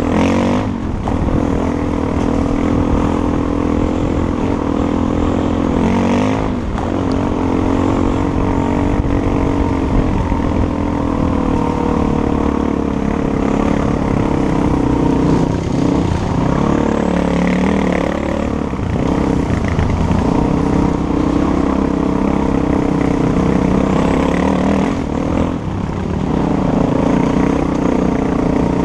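Dirt bike engine running under load, its pitch rising and falling, with brief dips in pitch and level several times.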